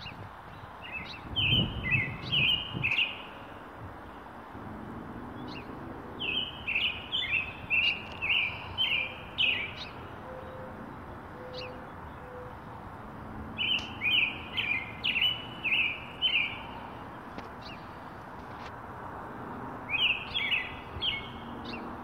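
Songbird singing: four phrases of quick, clear whistled notes, each a few seconds long, separated by pauses of a few seconds.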